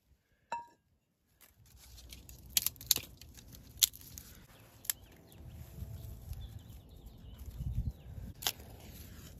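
A light clink about half a second in, then handling noise from dry grass and small twigs being laid as tinder in a brick fire pit: rustling and a few sharp snaps over a low steady rumble.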